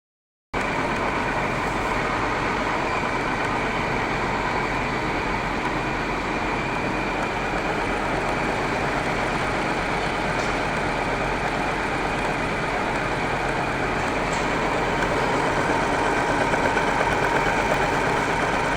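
Milling machine running steadily, a constant mechanical hum with a few steady tones.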